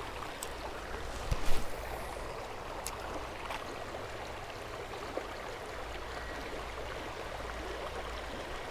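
Creek water running steadily over rapids below a waterfall, with a brief louder sound about a second and a half in.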